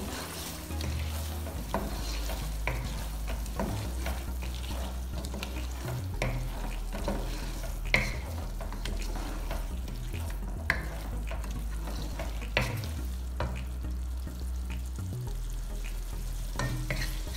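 Wooden spatula stirring chicken and masala in a frying pan, with a steady sizzle and irregular scrapes and knocks of the spatula against the pan, over a low steady hum. This is the bhuna stage of a chicken karahi, mixing freshly added ground spices into the chicken and softened tomatoes.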